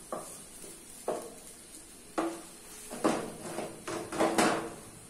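Wooden spoon knocking and scraping against a non-stick frying pan as chopped onion is stirred, about seven separate knocks, several with a short ring.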